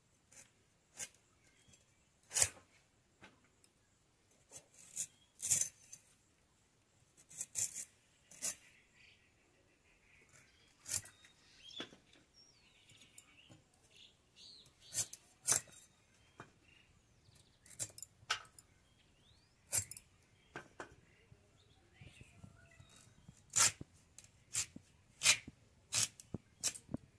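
Red amaranth stalks being chopped on a boti, a curved blade fixed upright on a wooden base: irregular sharp, crisp clicks, roughly one a second, as each stalk is cut through.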